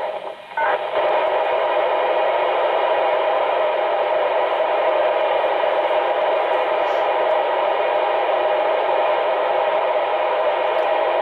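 CB radio transceiver's speaker putting out steady static hiss with no voice on the channel, starting abruptly about half a second in and holding at an even level.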